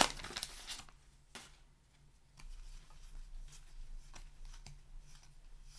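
Paper-wrapped trading card pack being opened and its cards handled: a brief crinkle of the wrapper at the start, then faint scattered clicks and rustles as the cards are flicked through, over a steady low hum.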